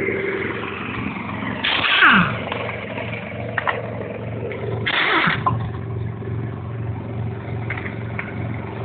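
An impact wrench working on a car wheel's lug nuts: two short loud bursts, each winding down with a falling whine. A steady low hum runs underneath.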